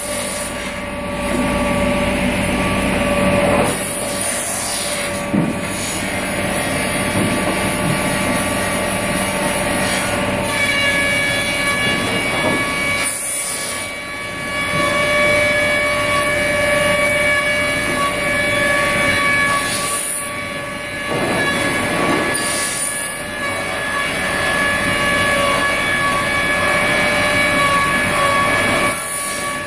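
Weinig Hydromat 25-30 eight-spindle four-sided planer running as boards are fed through. Its cutter spindles make a loud, steady whine of several held tones over a constant mechanical noise, with a few brief dips in level.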